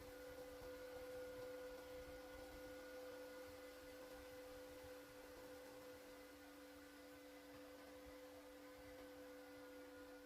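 Faint steady hum made of two low tones held at an even level, with fainter higher tones above them.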